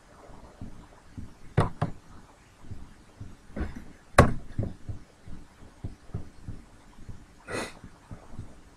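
Irregular soft knocks and thumps with a few sharper clicks, the loudest about four seconds in, and a brief rustle near the end: desk and mouse handling noise picked up by the computer's microphone.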